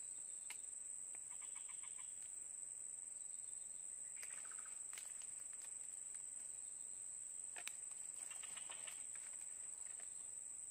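Forest ambience: a steady high-pitched insect drone, with a bird calling three times in short rapid trills, and a few sharp clicks.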